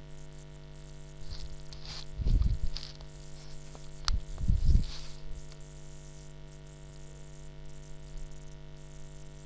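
Steady electrical mains hum on an open microphone. Two soft low puffs come about two and four and a half seconds in, and a single sharp click just after four seconds.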